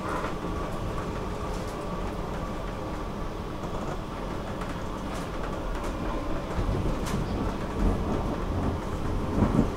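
Stockholm metro train running on the rails: a steady low rumble and rattle, with a couple of louder knocks near the end.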